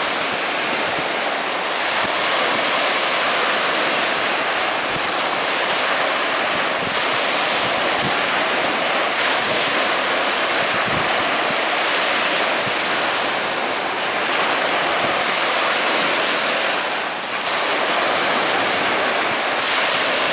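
Rushing whitewater of the Niagara River rapids, a steady noise of churning water, with wind buffeting the microphone now and then.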